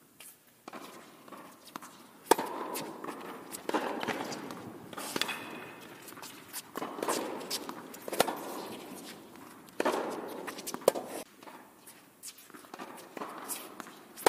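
Tennis rally in an echoing indoor court: racket strikes on the ball and ball bounces every second or so, the loudest about two seconds in, with shoes scuffing and stepping on the hard court between shots.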